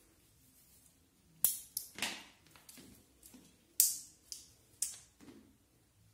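Cat wand toy with a feather lure being swung, giving a series of sharp swishes and taps as it hits the floor. The loudest come about a second and a half in and near four seconds.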